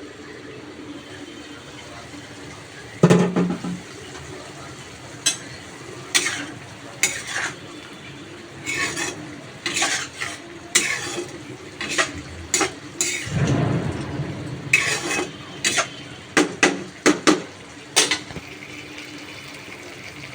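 A metal spoon stirring in a cooking pot, clattering and scraping in a run of sharp, irregular knocks over a steady background, the loudest knock about three seconds in.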